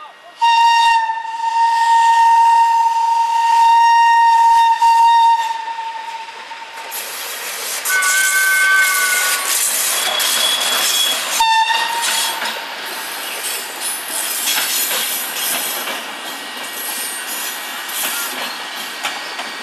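Electric locomotive's horn sounding one long blast for about six seconds, then a few shorter horn notes, as the locomotive and its train of coaches pass close by. Steady rolling noise of wheels on rails fills the rest.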